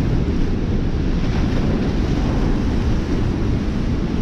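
Turbulent floodwater rushing steadily downstream of a dam whose spillway gates are open, a loud, even wash of whitewater.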